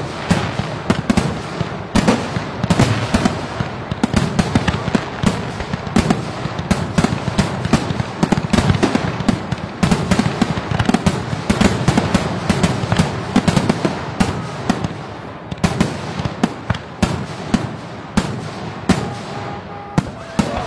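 Fireworks going off in rapid succession: a dense run of sharp bangs and crackles, many per second, with no let-up.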